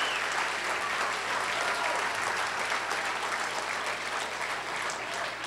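Audience applauding, thinning out toward the end.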